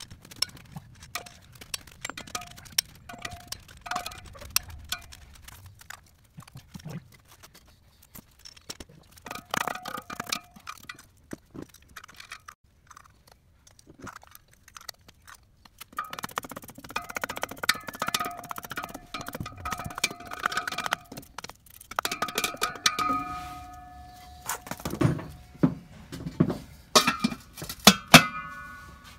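Metal tools clicking and knocking on truck lug nuts, with chrome lug nut covers and a hub cover clinking and ringing briefly as they are handled and fitted. The loudest ringing clinks come near the end.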